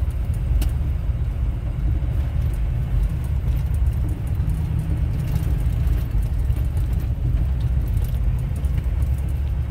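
Inside a vehicle's cabin while driving on a gravel road: a steady low rumble of engine and tyre noise, with a few faint clicks.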